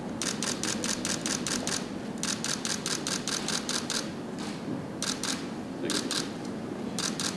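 Camera shutters firing in rapid bursts of clicks, about five a second, in several runs separated by short pauses, as photographers shoot a posed group photo.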